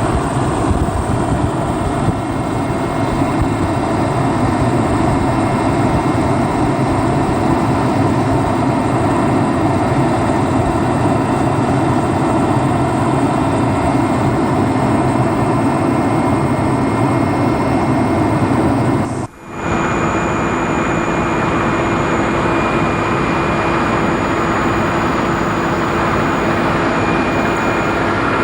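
Helicopter engine and rotor noise heard from inside the cabin, loud and steady with a constant drone of tones. About 19 seconds in it cuts out for a moment and comes back with a slightly different pitch.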